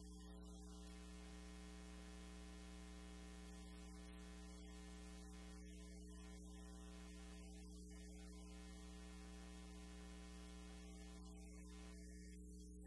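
Near silence: a steady electrical mains hum with faint hiss.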